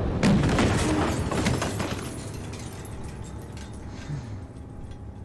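Film action sound effects: several sharp crashes in the first second and a half, then a low sound that fades away.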